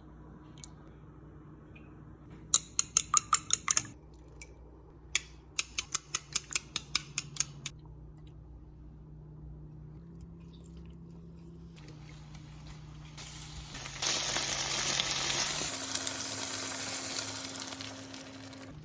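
Two runs of quick, evenly spaced clicks of a utensil against a bowl. Then food hits hot oil in a pan and sizzles, loud for a couple of seconds and then settling to a softer sizzle.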